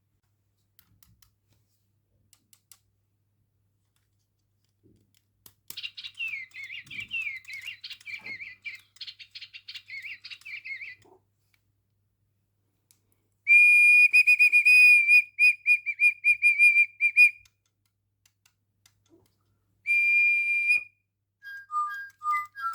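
Electronic toy bird chirping and whistling: a run of warbling tweets about six seconds in, then a loud steady whistle pulsing for about four seconds, a short whistle later, and a few short beeping notes at the end.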